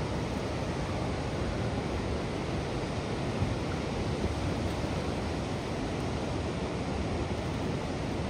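Floodwater pouring over a weir and churning in the rapids below: a steady, unbroken rush of water.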